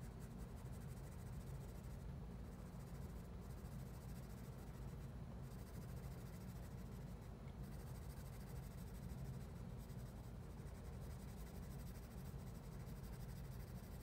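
Graphite pencil scratching faintly on drawing paper in steady shading strokes.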